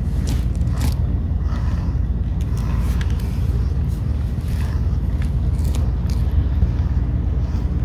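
A steady low rumble runs throughout, with soft scraping strokes of hands and a grooming comb working through a cat's fur.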